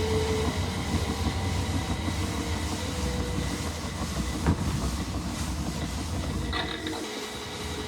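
Miele Novotronic W377 WPS washing machine running in its rinse cycle: the drum and motor give a steady low rumble with a faint whine above it, and there is a single knock about four and a half seconds in.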